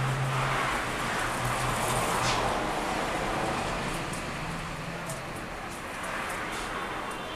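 Outdoor background noise with a passing vehicle: a low engine hum that fades out after about two seconds, over a steady hiss of distant traffic.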